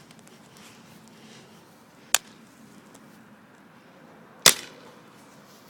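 BB gun being fired: a quieter sharp click about two seconds in, then a louder crack about four and a half seconds in with a short tail.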